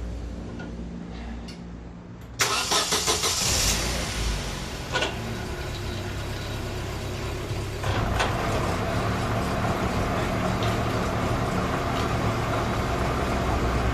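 Daewoo Lanos engine running in gear with a jacked-up front wheel spinning in the air, the front-left wheel bearing giving a steady drone. A loud rush of noise comes about two and a half seconds in, and from about eight seconds the hum grows louder and stays steady: the sign of a worn front-left hub bearing, a hum called unbelievable.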